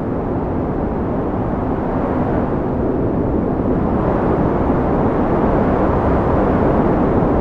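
Wind blowing steadily, a low rushing noise that slowly swells into a stronger gust in the second half.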